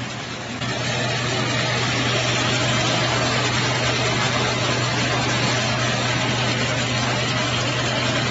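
Electric peanut peeling machine running: a steady motor hum under a dense, even noise. It grows louder about half a second in and then holds steady.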